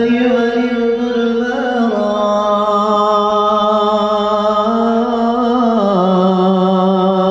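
A man singing slow, long-held notes into a microphone, amplified through a PA, with no drumming. The pitch slides to a new note a few times, about a second and a half in and again near six seconds.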